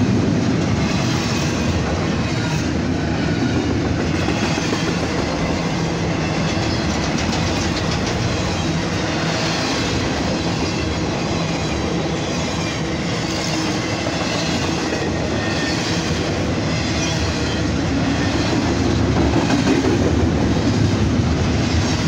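Double-stack intermodal freight train of container well cars rolling past, a steady rumble and rattle with rhythmic clicking of steel wheels over the rail joints.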